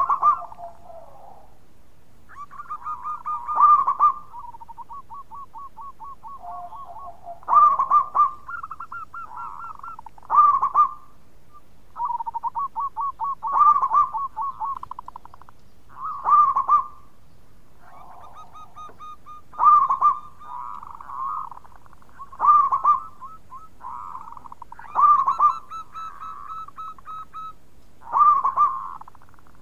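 Zebra dove (perkutut) singing its cooing song. It repeats a phrase of rapid trilled notes with a loud accented coo roughly every three seconds, about ten times.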